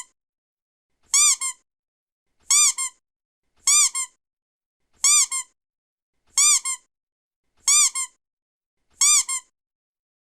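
Rubber duck toy squeaking, about eight times at an even pace of roughly one squeak every 1.3 seconds. Each is a high squeak that rises and falls in pitch, followed at once by a shorter, softer squeak.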